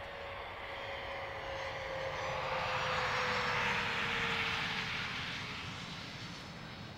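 Bombardier CRJ200 regional jet's two rear-mounted turbofan engines running as it lands: a whine that slowly falls in pitch, under a jet rush that swells to its loudest about three to four seconds in as the aircraft passes and settles onto the runway, then fades.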